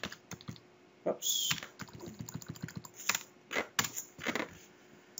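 Typing on a computer keyboard: irregular keystrokes, some in quick runs, as a line of code is entered.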